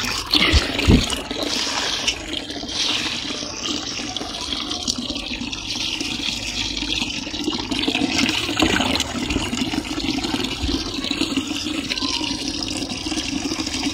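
Water pouring in a steady stream and splashing into a plastic tub while potted plants are watered.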